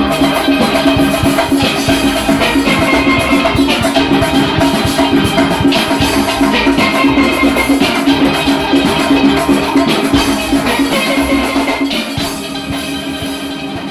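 Steel orchestra playing: many steel pans sounding together over drums and percussion. The music fades down near the end.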